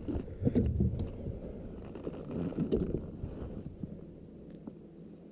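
Low rumbling with scattered light knocks and clicks from handling on a fishing kayak while a hooked fish is brought in, dying down near the end. A few faint high chirps come a little past halfway.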